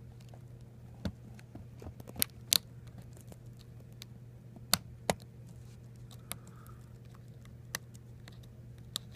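Small, sharp, irregular clicks, about eight of them, as a thin pick works the plastic retainer clip of a ThinkPad T440s key. The clip is not seating under its hook. A low, steady hum runs underneath.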